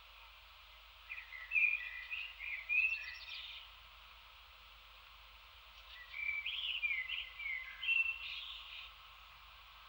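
A songbird sings two phrases of quick, varied warbling notes, each about two and a half seconds long and a few seconds apart, over a steady background hiss.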